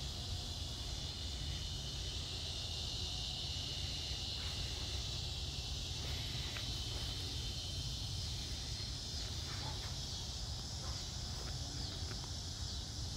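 Steady, continuous high-pitched chorus of insects, cricket-like, over a low rumble, with a few faint ticks.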